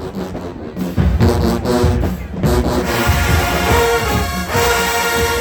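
Marching band brass section playing loud held chords over heavy drum hits, ending on a long sustained note.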